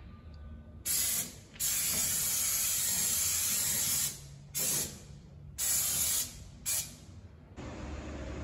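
Aerosol can of rubberized underbody coating spraying in five bursts: a short one about a second in, a long one of about two seconds, then three shorter ones. The coating is applied to the car's underside to keep water off and stop rust.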